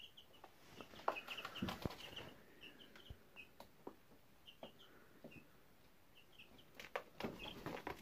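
White Leghorn chicks peeping in many short, high chirps. Bursts of rustling and tapping come about a second in and again near the end.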